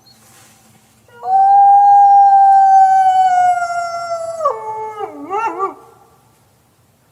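A canine howl: one long, loud pitched call that starts about a second in, holds high while sinking slowly, steps down in pitch partway through, then wavers up and down briefly before fading out.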